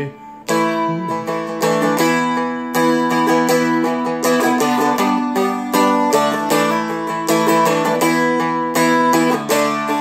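Seagull Merlin, a four-string dulcimer-style instrument, strummed in a steady rhythm, its open strings droning under the changing chords.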